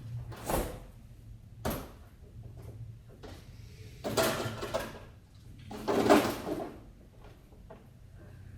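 Bottles of Worcestershire sauce and vinegar being put away: two short knocks, then two longer clattering bursts of kitchen cupboard doors and bottles being handled, about 4 and 6 seconds in.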